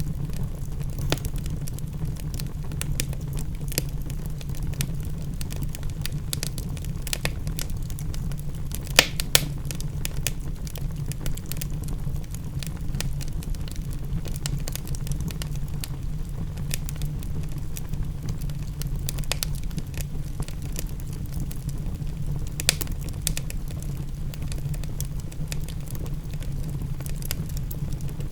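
Wood fire crackling in a fireplace: frequent small snaps and a few sharper pops, the loudest about nine seconds in, over a steady low rumble.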